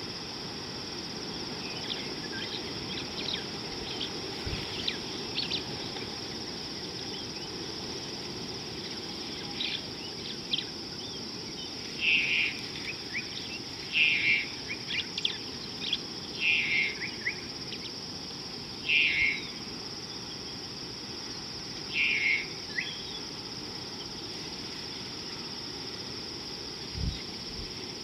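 Steady high-pitched insect chorus, with a bird giving short loud calls about five times in the middle, a couple of seconds apart.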